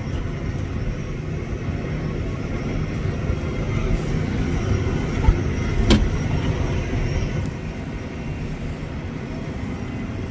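Farm tractor's engine running steadily, with a sharp clank about six seconds in.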